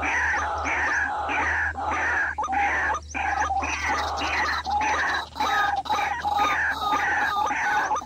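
White-breasted waterhen calls: a rapid, unbroken series of short croaking notes, each falling in pitch, repeated a few times a second.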